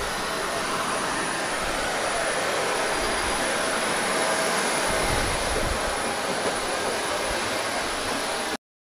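Jet aircraft engines running, a steady rushing noise with a faint high whine; it cuts off suddenly near the end.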